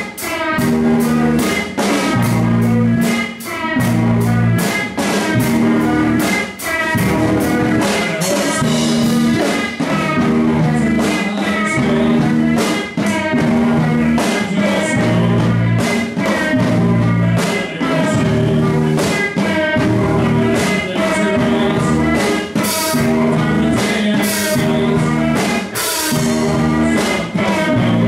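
Live band playing: drum kit with cymbals, guitar and a singer over a pulsing bass line. Cymbal crashes stand out near the end.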